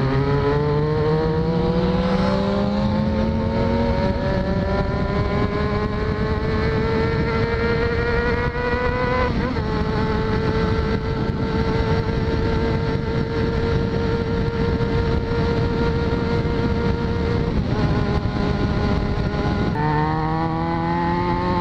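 Yamaha XJ6's 600 cc inline-four through a de-baffled exhaust, pulling up through the gears while ridden. The revs climb and drop at an upshift about four seconds in and again near nine seconds. They then hold steady at cruising speed, dip and shift again near the end. Steady wind and road noise run underneath.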